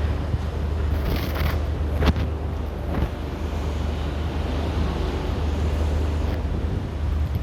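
Outdoor air-conditioner units running with a steady low hum, with a few short knocks and some wind on the microphone.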